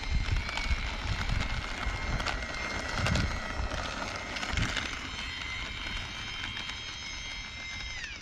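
Twin 64 mm electric ducted fans of an E-flite A-10 Thunderbolt II model jet running on the runway: a steady high-pitched whine of several tones, whose pitch drops sharply near the end.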